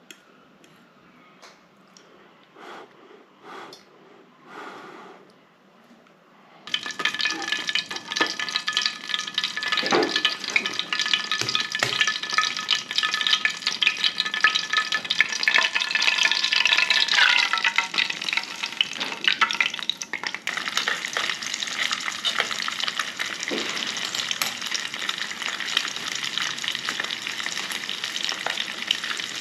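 Hot oil sizzling and crackling in a small camping frying pan over a butane canister stove. It starts abruptly about seven seconds in, after a quiet stretch, and goes on as a dense, loud crackle while an egg fries in the oil.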